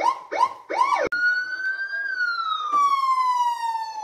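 Electronic police siren sound effect played through a child's ride-on toy police car's speaker: three quick whoops that rise and fall, then one long wail that rises for about a second and slowly falls away.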